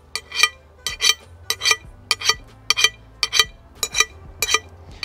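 Slip-joint pliers striking the edge of a freshly torch-cut steel strip to knock off the slag: a quick run of sharp metallic clinks, about three a second and often in pairs, each ringing briefly. Slag that knocks off this easily is the sign of a clean cut.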